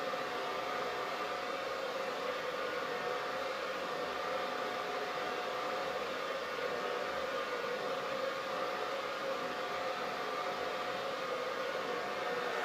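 Hair dryer running steadily: an even rush of blown air with a steady motor whine.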